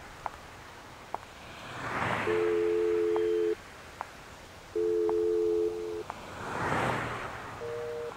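Telephone ringing tone heard from a mobile phone held to the ear: a steady two-note tone sounds twice, each a little over a second long with a gap of about the same length, and a shorter, higher beep follows near the end. Cars pass by in whooshes.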